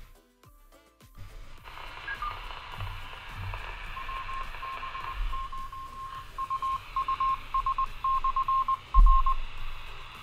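Handheld two-way radio's speaker giving out hiss, then a string of beeps at one pitch in short and long lengths, like a repeater's Morse code identification. A thump near the end.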